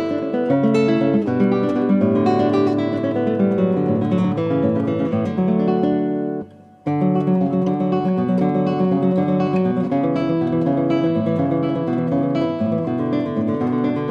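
Acoustic guitar music with plucked and strummed notes. It breaks off briefly about halfway through, then carries on.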